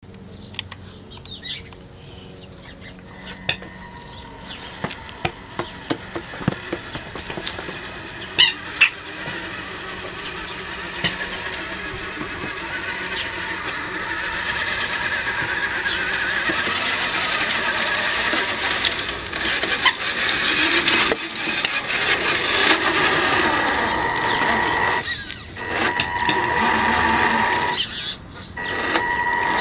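Electric motor and gear drive of a Tamiya King Hauler RC truck approaching, its whine and rolling noise growing steadily louder. Near the end it becomes a steady whine with two brief dips. A few sharp ticks sound in the first several seconds.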